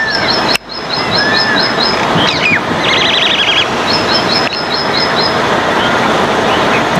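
Wild birds calling over a loud, steady rushing background noise. There are two quick runs of high chirps, a few short arched whistles, and a brief buzzy trill about three seconds in.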